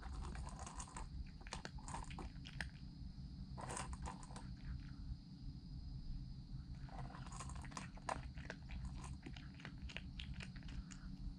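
Calico cat crunching food from a stainless steel bowl at close range, in bouts of quick bites with a pause of a couple of seconds in the middle while it lifts its head.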